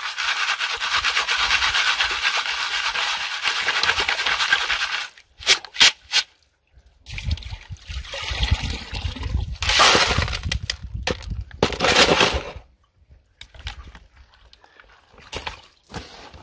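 Muddy water and sediment poured through a plastic strainer into a plastic basin, a steady splashing for about five seconds. Then a few short knocks and another stretch of sloshing and splashing, ending in a few small clinks.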